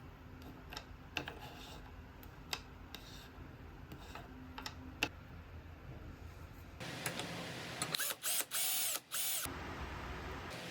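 Scattered light clicks and taps, as of small wooden parts being handled and fitted. Near the end, a small power tool runs in short starts and stops.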